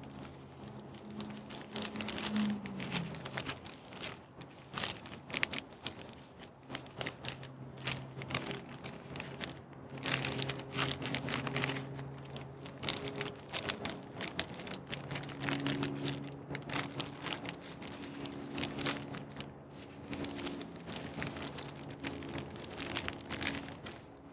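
Plastic packaging and paper crinkling and rustling in irregular bursts as they are handled and unfolded, over a low steady hum.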